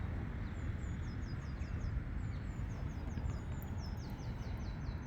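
A small bird singing two quick runs of short, high, downward-slurred notes over a steady low outdoor rumble.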